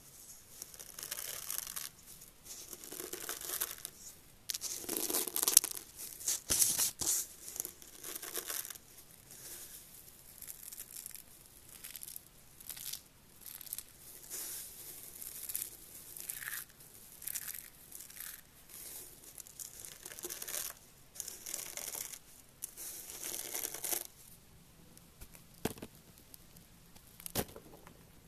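Dry, crisp curly shavings rustling and crackling as fingers rake through and squeeze the pile, in bursts of a second or two. Near the end it falls quieter, with two sharp clicks.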